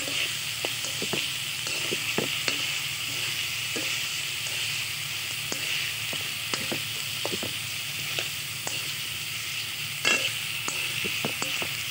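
Chicken pieces and garlic sizzling steadily in hot oil in a wok. Scattered clicks and scrapes come from metal tongs against the pan as the meat is turned.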